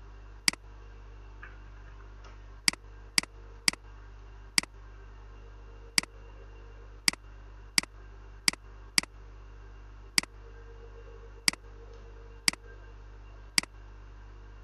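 Computer mouse clicking: about fourteen sharp single clicks at irregular intervals, over a steady low hum.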